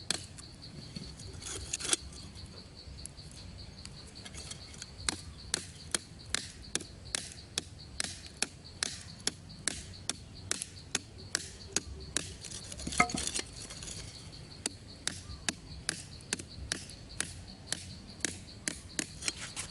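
A hand tool striking repeatedly, sharp chopping knocks at about two to three a second with a short lull early on.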